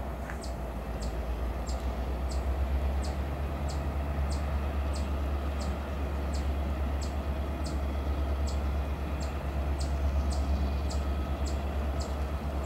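Diesel freight locomotives approaching slowly, a steady low engine rumble that grows a little louder. A faint, short high tick repeats about every two-thirds of a second.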